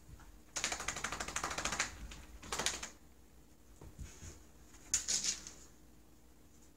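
A Pinscher puppy's claws and body scrabbling rapidly against a shaggy rug as it squirms on its back: a long scratchy burst about half a second in, a shorter one near three seconds, and another around five seconds.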